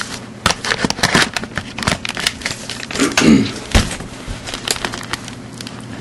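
Camera handling noise: irregular clicks, crackles and rustling as the camera is moved about, with a brief vocal sound a little after three seconds in.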